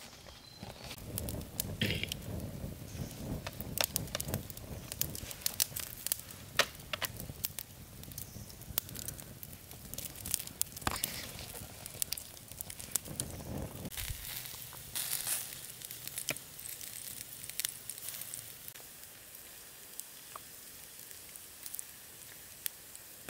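Wood campfire crackling, with frequent sharp pops and snaps.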